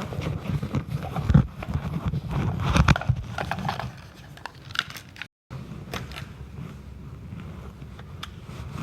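Rustling and rubbing handling noise on a recording device's microphone, with scattered clicks and scrapes. The sound cuts out completely for a moment about five seconds in.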